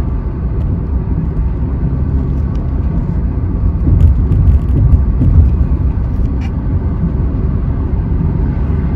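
In-cabin drone of a Kia Carens with its 1.5-litre naturally aspirated engine, cruising in sixth gear at about 2000 rpm and 77 km/h: a steady low rumble of tyres, road and engine. The rumble swells briefly about four to five and a half seconds in.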